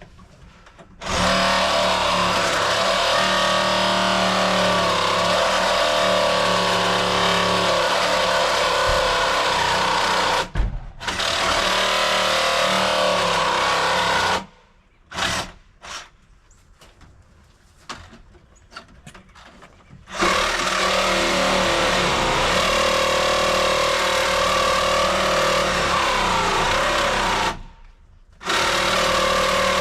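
Electric power tool running under load in long stretches, stopping and restarting several times, with short quieter pauses between the runs.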